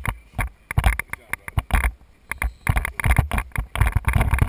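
Rapid, irregular rifle fire from several shooters on a firing line, the shots overlapping in quick clusters of several a second.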